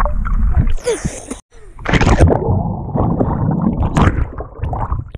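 Underwater sound picked up by a GoPro in its housing in a swimming pool: muffled churning and gurgling of water stirred by swimmers, in irregular surges, cutting out briefly about a second and a half in.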